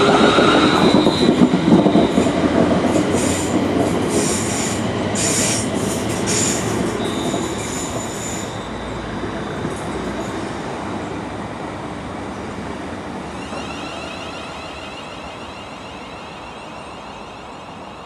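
London Midland Class 350 Desiro electric multiple unit pulling away. Its traction motors whine up in pitch as it accelerates, and a few short high wheel squeals come a few seconds in. The sound fades steadily as the train draws off.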